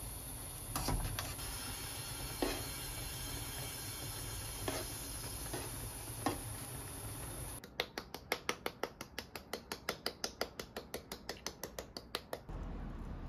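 Creamy pasta sauce simmering in a frying pan with a steady hiss while metal tongs toss spaghetti, clacking a few times. About seven and a half seconds in, that gives way to a fast, even run of crisp clicks, about seven a second for some five seconds, from a spice grinder being twisted over the plated pasta.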